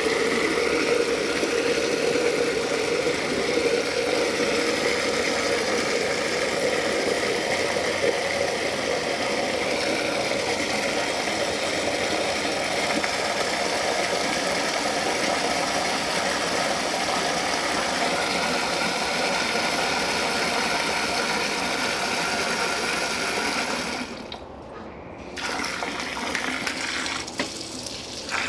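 Water from a garden hose pouring steadily into a container, a continuous rushing fill. It drops away briefly a little before the end, then resumes.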